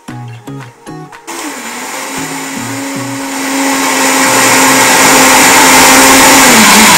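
High-powered countertop blender running on a jar of hemp seeds and water. It starts about a second in, gets louder around three seconds in, and its pitch drops near the end as it slows down.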